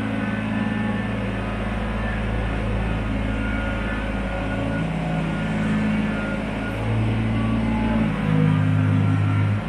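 Kubota BX23S subcompact tractor's three-cylinder diesel engine running as it drags a box blade across a dirt floor to grade it, its note changing a few times in the second half.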